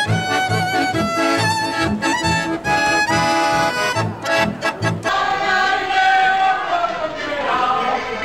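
Accordion and violin playing a lively tune over a regular oom-pah bass beat. The music stops abruptly about five seconds in, and voices take over.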